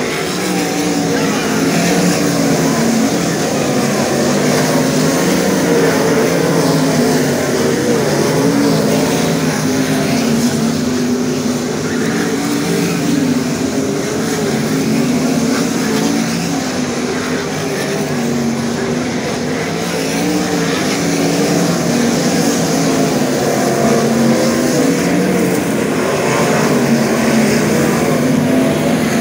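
Field of winged 410 sprint cars racing on a dirt oval, their V8 engines running together as the pack laps past, the pitch rising and falling continuously with throttle through the turns.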